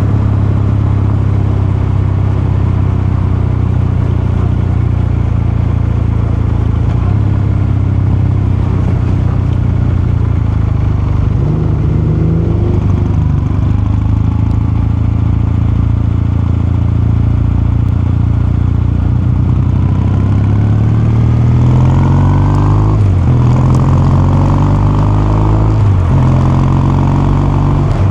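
Kawasaki Meguro K3's air-cooled parallel-twin engine running while the bike is ridden. Its note rises and falls briefly about halfway through. Near the end it climbs under acceleration twice, dropping back at each gear change.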